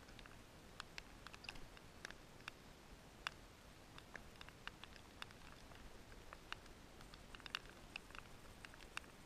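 Near silence with faint, scattered light ticks and clicks, a few each second, at an irregular pace.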